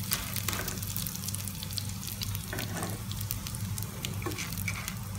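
Dried anchovies sizzling and crackling in a little hot oil in a pan. A spatula stirs and scrapes through them as they toast.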